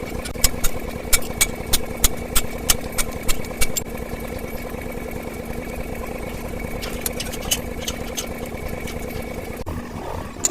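An engine running steadily, with sharp metallic taps coming about three a second over the first four seconds and a few more around seven seconds in.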